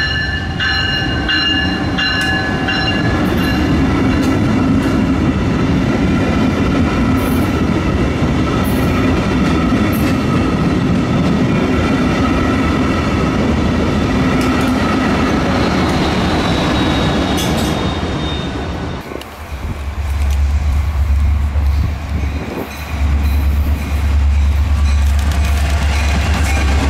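A Brightline passenger train rolls past over a grade crossing, with a steady rumble and wheel noise under the ringing of the crossing signal bells. About 19 seconds in, the sound cuts to a Florida East Coast Railway diesel locomotive hauling passenger cars past, with a heavy deep rumble.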